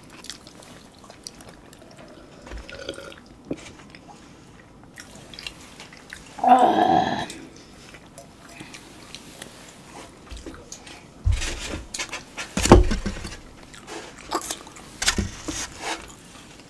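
Mukbang eating sounds: soft chewing of tofu rice and artificial-meat rice, with the clicks and knocks of food, spoon and containers being handled and a few low thumps on the microphone, the loudest about two-thirds of the way through. About six and a half seconds in there is a short pitched vocal sound, under a second long.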